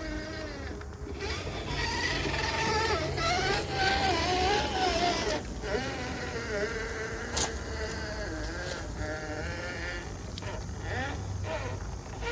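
RC truck's electric motor whining, its pitch rising and falling as the throttle is worked, over a low steady hum.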